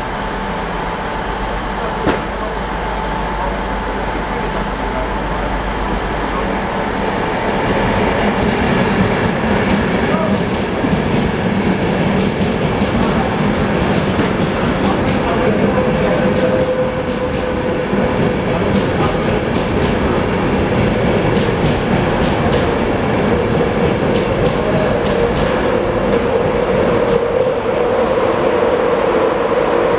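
Express passenger train running past the platform. The rush of wheels on rail, with rapid clicking over the rail joints, grows louder about eight seconds in, and a steady whine runs through the second half.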